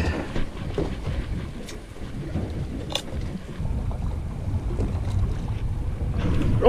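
Wind buffeting the microphone over open water aboard a small fishing boat, a steady low rumble, with a couple of small clicks or knocks about two and three seconds in.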